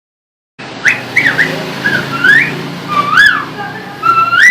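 Hill mynah giving a run of short, loud whistled notes that glide up and down, mimicking a car horn. It starts suddenly about half a second in.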